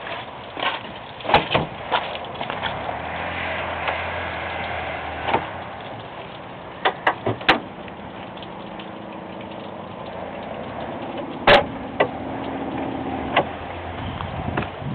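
Sharp clicks and clunks of an SUV's hood being unlatched, lifted and handled, with the loudest knock about eleven and a half seconds in, over a steady low hum.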